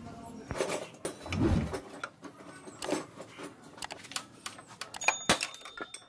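Metal tools and engine parts clinking and clicking in scattered, irregular knocks while a motorcycle engine's exposed flywheel is worked on by hand. A short dull thump comes about a second and a half in.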